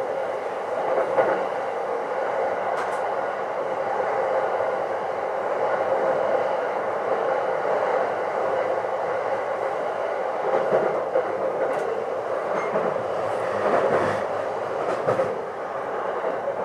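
Running noise heard inside an E233-3000 series electric train's Green car at speed: a steady rumble of wheels on rail, with a few sharp clicks and knocks from the track through it.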